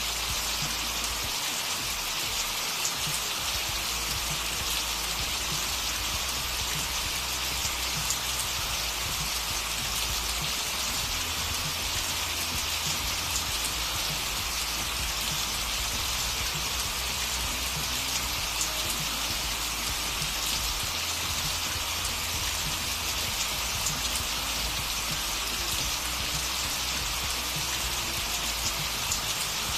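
Steady recorded rain: an even hiss with fine patter, the kind of rain track laid over a subliminal audio to mask its affirmations.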